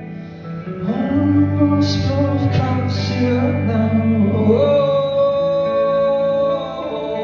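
Male singer performing live over guitar accompaniment; the voice comes in about a second in and holds one long note through the second half.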